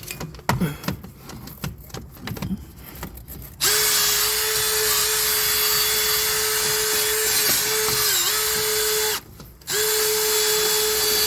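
A few light clicks and knocks, then an electric drill runs at a steady speed for about five seconds, its pitch dipping briefly under load, stops, and runs again for about two and a half seconds, cleaning out the wheel hub's axle bore.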